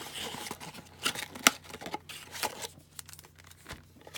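A cardboard trading-card blaster box and its packaging being handled: crinkling and rustling with a few sharp clicks and taps.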